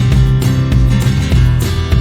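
Background music: a produced track with strummed guitar and a steady beat.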